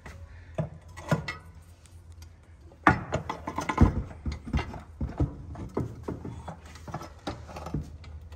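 Irregular metal knocks, clinks and scrapes of hand tools working on a removed engine cooling manifold. They are sparse at first and come thick and fast from about three seconds in.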